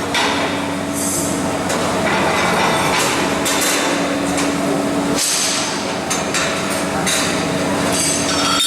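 Welding-shop work noise: a steady crackling hiss with metal knocks and clinks through it, over a faint hum that comes and goes.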